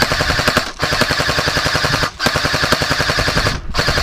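Airsoft electric gun firing on full auto close by, a fast mechanical rattle of shots in four long bursts with short breaks between them.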